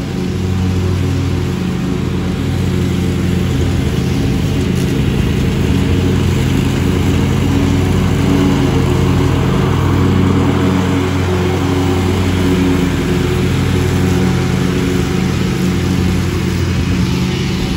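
Lawn mower engine running steadily while mowing.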